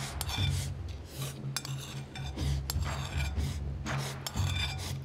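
Metal spoon scraping and clinking against a ceramic plate, scooping up the last grains of fried rice in a string of short, quick scrapes.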